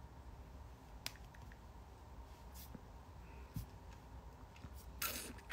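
Quiet small-room tone with a low hum, broken by a couple of faint clicks and a short breathy rustle near the end.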